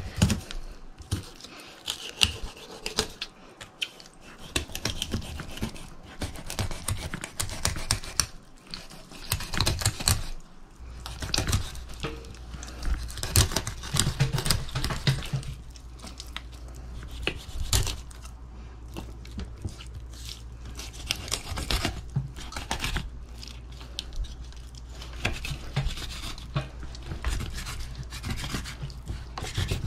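Fillet knife cutting along a chinook salmon on a wooden cutting board: irregular scraping and tearing as the blade works through flesh and along the bones, with small knocks on the board. The knife is one the owner admits needs sharpening. A low steady hum joins about a third of the way in.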